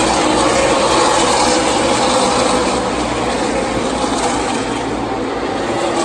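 NASCAR Xfinity Series stock cars' V8 engines running at speed around the track: a loud, steady drone of several engines.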